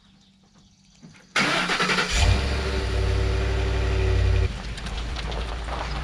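Ford F-150 pickup's engine starting: it fires about a second and a half in and runs at a high start-up idle. About four and a half seconds in it drops to a lower, steadier running sound as the truck begins to pull away.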